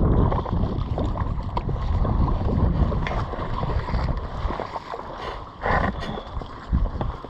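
Floodwater sloshing and splashing, with wind buffeting the microphone and a brief louder splash near the end.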